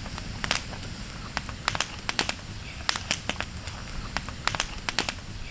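Wood campfire crackling, with irregular sharp pops several times a second.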